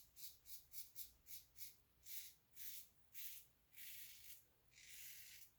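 Carbon safety razor with a Personna Med Prep blade cutting through lathered stubble: short scratchy strokes, about four a second, then slower, longer strokes about two seconds apart near the end.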